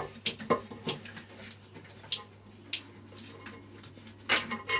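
Screwdriver unscrewing the back fixing screws inside an emptied ceramic toilet cistern: scattered small clicks and scrapes of metal against the screw heads and porcelain, with a louder cluster of clicks near the end.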